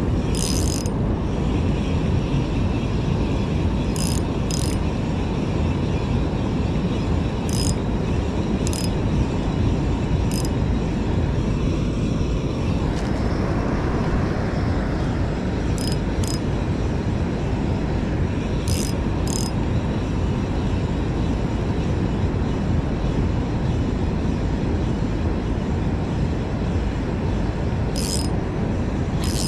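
Spinning reel being worked against a hooked squid, with short clicks, often in pairs, every few seconds, under a steady loud rush of wind and water noise on the microphone.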